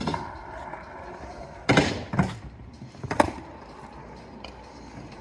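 Skateboard wheels rolling steadily over concrete, with three sharp loud knocks about two, two and a half and three seconds in.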